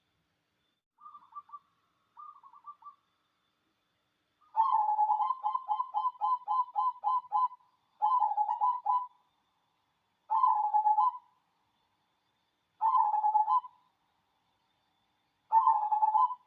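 A zebra dove (perkutut) cooing: two faint short phrases, then a fast rolling run of about five notes a second lasting some three seconds, then four separate cooing phrases spaced a couple of seconds apart.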